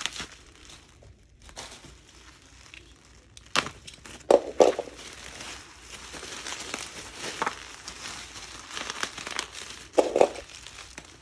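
Packaging being handled and opened: plastic and paper crinkling and rustling, with irregular clicks and a few louder crackling bursts.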